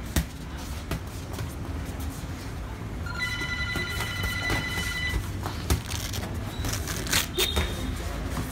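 Boxing gloves landing on gloves, pads and headgear during sparring, a scatter of sharp slaps and knocks, loudest near the start and about seven seconds in. From about three seconds in, a steady pitched tone holds for about two seconds over a low rumble.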